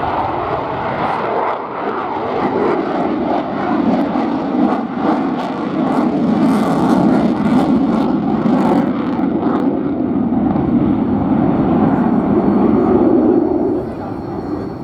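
Boeing F-15QA Ababil fighter jet's twin General Electric F110 turbofans running loud on a display pass, the noise building over the first few seconds and dropping away sharply near the end.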